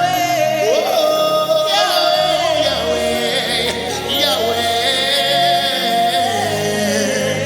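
Gospel worship music: a voice holding long, wavering sung notes over a sustained accompaniment.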